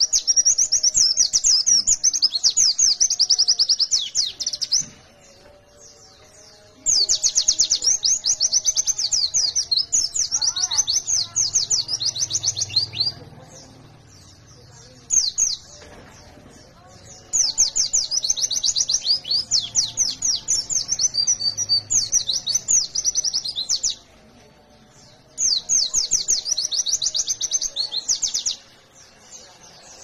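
Pleci (white-eye, Zosterops) singing in fast, high, rapid-fire trills of evenly repeated notes, the 'nembak' (shooting) song prized by pleci keepers. There are four long runs of several seconds each and one brief burst, with short pauses between them.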